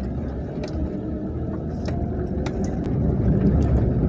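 Steady low rumble of a motor vehicle engine running, with a few light clicks over it.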